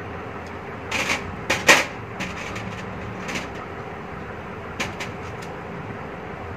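Light clicks and clatter of small metal parts being handled and fitted into an LPG kit's pressure reducer, spaced a second or so apart, the sharpest about a second and a half in. A faint steady hum lies underneath.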